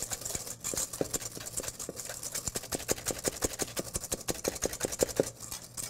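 Wire whisk beating egg yolks and sugar in a stainless steel bowl, in quick even strokes of about five or six a second against the metal, working the sugar until it dissolves into the yolks.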